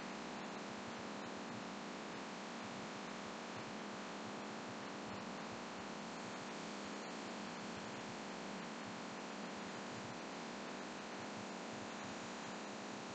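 Laminar flow hood blower running steadily, an even rushing hum of air forced through its filter, with a few faint small ticks.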